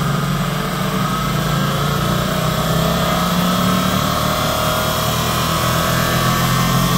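Sun 504 distributor tester's drive spinning a Bosch ignition distributor, a steady whir that rises slowly in pitch as the speed is brought up toward the rev-limiting rotor's 6,500 rpm cut-out.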